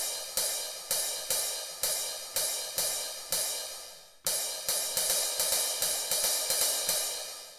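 Alesis SR-16 drum machine's "combo crash" cymbal sample, triggered over and over about twice a second. Each hit rings out and fades. The strikes stop briefly a little after four seconds in, then resume.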